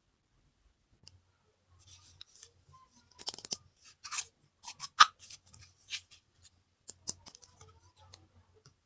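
Scissors snipping through toy packaging: a run of sharp, irregular snips and clicks, the loudest about five seconds in.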